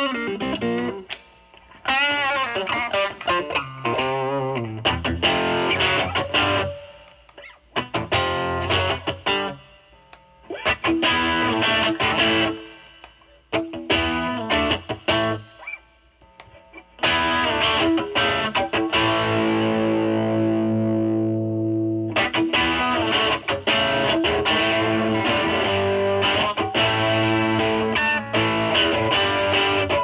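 Stratocaster electric guitar played through a DOD FX102 Mystic Blues Overdrive pedal into a Marshall Valvestate amp's overdrive channel: distorted blues licks and chords in short phrases with brief breaks between them. After a break about 16 seconds in, the playing goes on with long ringing chords.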